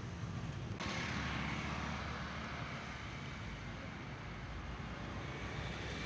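Steady outdoor street background of traffic noise with a low engine hum. The background changes abruptly a little under a second in.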